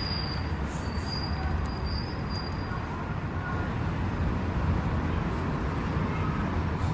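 Steady low background rumble with no clear events, with a few faint high thin tones in the first few seconds.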